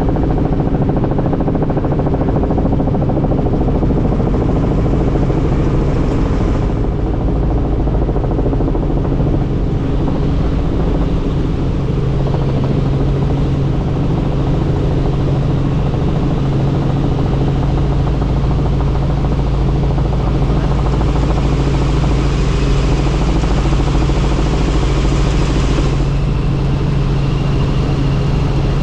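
Helicopter turbine and rotor running in steady cruise: a loud, even drone with a hiss that swells about two-thirds of the way through and drops away a few seconds before the end.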